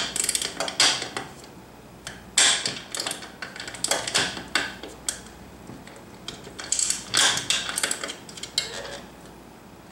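Hard clicks, knocks and rattles as the parts of a swing-arm lamp head (shade, socket housing and arm bracket) are handled and fitted together, in short bursts several times.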